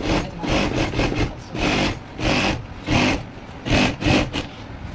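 Juki single-needle industrial sewing machine stitching heavy fabric in short runs, about eight brief bursts of rapid stitching with short pauses between them as the pedal is pressed and let up.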